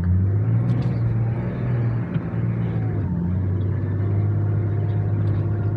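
Nissan Patrol's turbocharged engine pulling steadily as the 4x4 drives a rough, rocky off-road track, heard from inside the cab. The engine pitch holds mostly level, with a brief shift about three seconds in.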